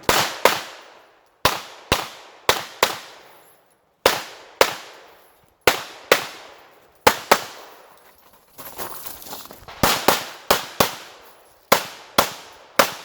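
Glock 17 9mm pistol firing a fast string of about twenty shots, mostly in quick pairs, during a USPSA stage. Each shot rings off briefly, and there are short pauses between groups.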